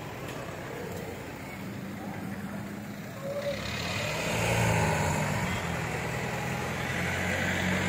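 Motor vehicle engine running with road and traffic noise. About three and a half seconds in, the engine hum grows louder and a wider hiss joins it.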